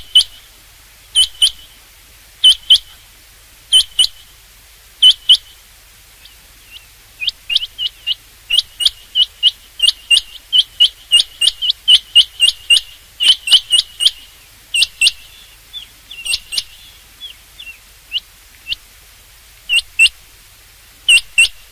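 Rain quail calling: short, sharp, high whistled notes, mostly in pairs about a second apart. The notes quicken into a rapid run in the middle, then go back to spaced pairs near the end.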